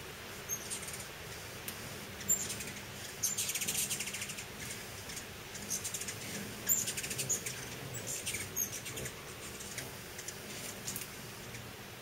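Hummingbirds calling at a nectar feeder: scattered short, high chips, and twice, around three seconds in and again near seven seconds, a rapid buzzy twittering chatter.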